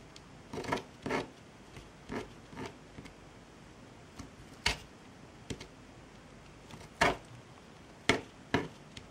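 Scattered short clicks, taps and rustles of hands handling jute thread and craft tools on a work surface, about eight separate small sounds.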